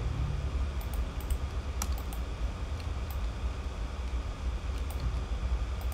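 Scattered computer keyboard and mouse clicks, a few at a time at irregular intervals, over a steady low hum.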